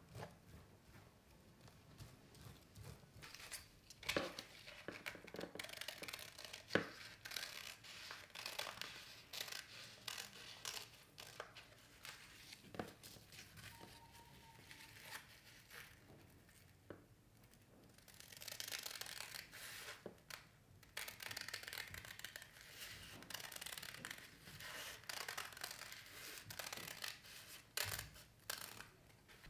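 Scissors cutting through a dry sheet of nori seaweed: a crisp crackling tear with each cut, coming in spells with a few sharp clicks.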